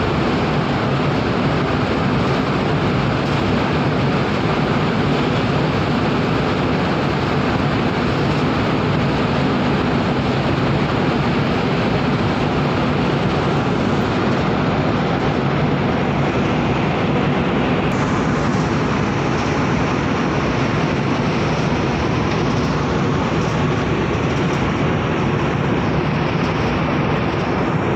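Steady rumble of a cargo ship under way: a few low, even hum tones under a loud, continuous hiss.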